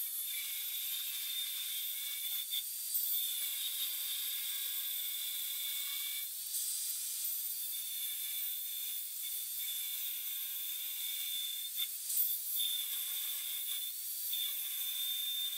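Angle grinder with a thin cut-off disc cutting notches into a hardened file-steel knife blank: a steady high motor whine over the hiss of the disc grinding into the steel, the motor's note dipping and recovering several times as the disc is pressed in and eased off.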